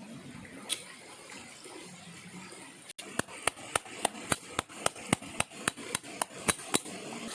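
Rapid, even chopping strokes, a blade striking a wooden board about four times a second, beginning about three seconds in after a single earlier knock.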